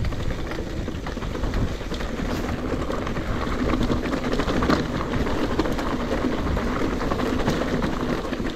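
Mountain bike rolling over a rough, loose trail: a steady crunch of tyres on gravel and stones, with constant small clicks and rattles from the bike.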